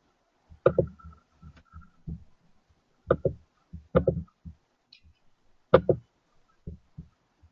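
A run of irregular dull knocks and thumps, the louder ones often coming in quick doubles, with quieter taps between.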